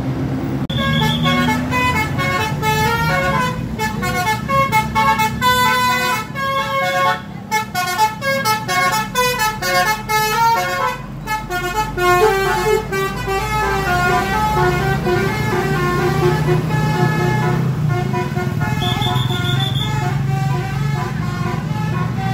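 Telolet horn on a bus playing a melody of quick stepping notes, several tones sounding together, over the bus's engine running.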